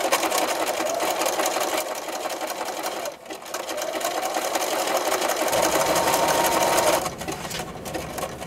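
Electric domestic sewing machine running at a fast, even stitch rate while zigzag-stitching the edge of a vinyl pouch. It stops briefly about three seconds in, runs again, and goes quieter after about seven seconds.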